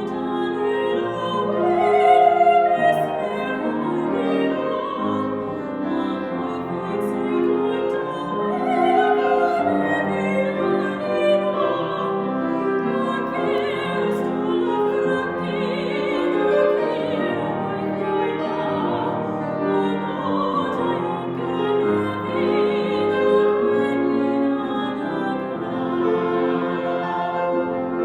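A classical singer in operatic style singing a Welsh art song with piano accompaniment, holding long notes with wide vibrato.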